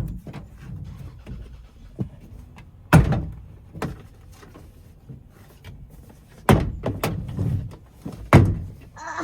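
Plastic retaining clips of a 1999 Honda Odyssey sliding door's interior trim panel popping loose under a pry bar: a few separate sharp pops and knocks, the loudest about three seconds in and again near the end.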